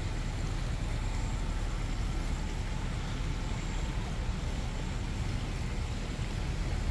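Steady low rumble of city traffic, with no single sound standing out.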